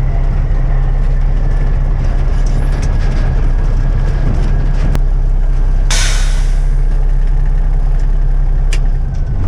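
Large truck engine running steadily at a low, even speed, with a short burst of hiss about six seconds in.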